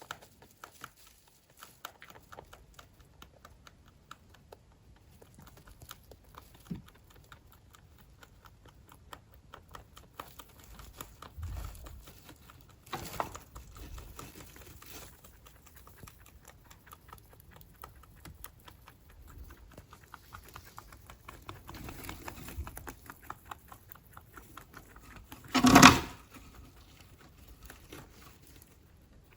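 A rabbit making quiet, rapid clicking and pattering sounds, with one short, much louder thud near the end.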